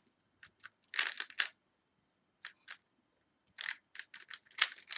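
A plastic 3x3 Rubik's cube being turned quickly by hand: bursts of rapid clicking and clacking as the layers turn, with short pauses between bursts and a dense run near the end.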